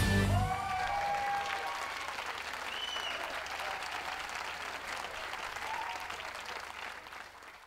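Audience applauding, with a few faint voices calling out over it; the applause fades away gradually to almost nothing.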